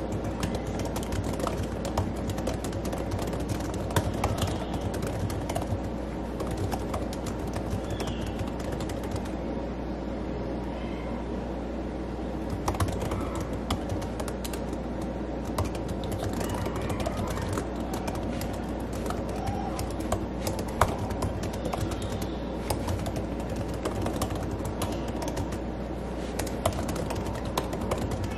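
Typing on a laptop keyboard: a quick, irregular run of key clicks.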